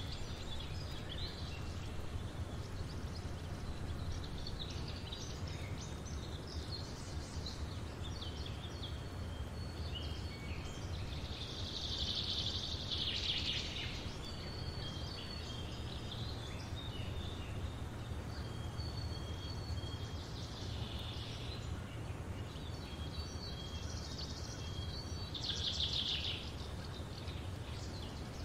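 Outdoor ambience: birds chirping and calling in short repeated trills, over a steady low rumble of background noise.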